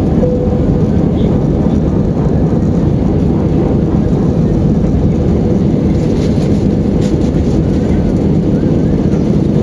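Airbus A320-200 jet airliner taking off, a loud, steady rumble of engine and airflow noise with a faint steady tone above it.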